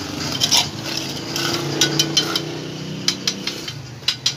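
Mason's trowel scraping and clinking on concrete hollow blocks as mortar is spread along the wall top: a run of short sharp clinks and scrapes. A low steady hum runs under the middle of it.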